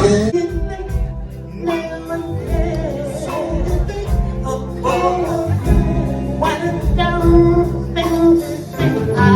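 A song with singing over a low bass line.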